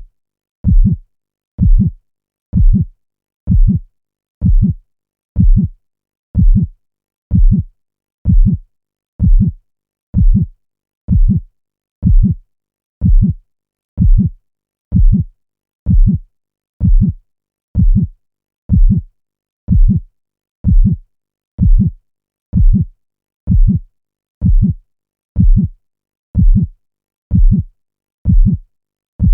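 Heartbeat sound effect looping: a steady lub-dub, each beat a pair of low thuds, a little over one beat a second.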